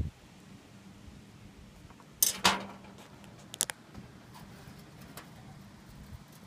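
Glass wine bottle being handled and knocked: a loud, short clatter about two seconds in, then two quick clinks about a second later.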